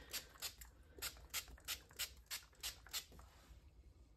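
Hand-held trigger spray bottle misting: about ten quick spritzes, roughly three a second, stopping about three seconds in.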